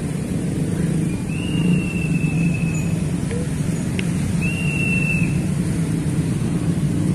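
Steady low rumble of vehicle engines, with two long, high, slightly falling whistle tones: the first about a second in, the second just past the middle.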